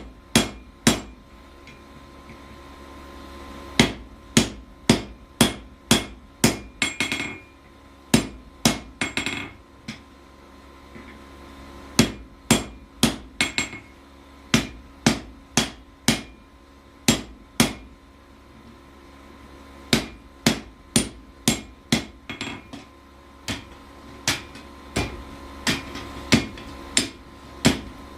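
Hammer blows on hot steel over an anvil while forging a froe, struck at about two blows a second in runs separated by short pauses. A couple of the blows ring on briefly.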